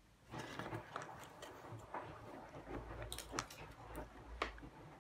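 Solder and flux crackling and spitting in quick, irregular sharp pops under a soldering iron, starting about a third of a second in, as a replacement triac's legs are soldered onto a washing machine circuit board.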